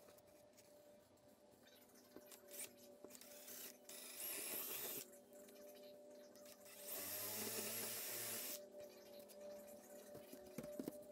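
Cordless drill boring into a pine board in two bursts, a short one about four seconds in and a longer one of nearly two seconds about seven seconds in. A couple of sharp knocks near the end.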